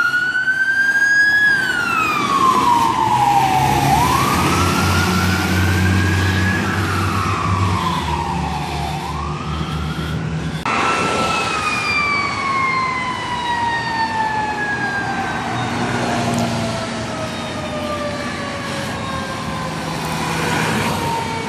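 Fire truck siren wailing, its pitch rising and falling in slow cycles, with a heavy engine rumble as the truck passes. About halfway it cuts to another siren whose pitch falls slowly in one long sweep.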